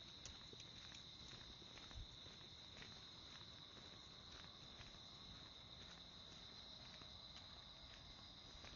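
Faint, steady high-pitched drone of insects chirring, with soft footsteps of someone walking, about two a second.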